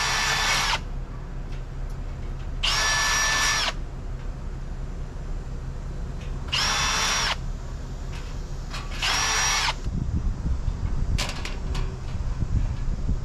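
Power drill run in four short bursts of about a second each, its motor whine spinning up and winding down each time. After the last burst come handling knocks and clicks.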